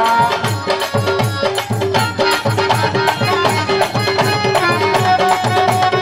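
Instrumental passage of a Bangla Baul devotional song played live: hand drums keep a steady, quick rhythm under a repeating melody of held notes.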